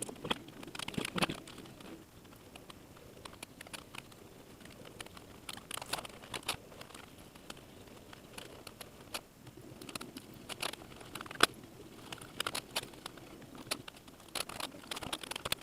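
Irregular clicks, taps and light rattles of small plastic and metal parts being handled while a laptop is worked on, with a few sharper knocks about six, eleven and fifteen seconds in.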